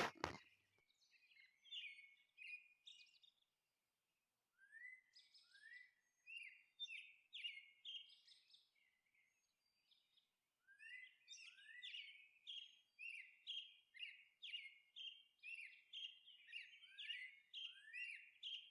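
Faint birds chirping: series of short, rising chirps, scattered in the first half and then coming quickly, about two a second, through the second half.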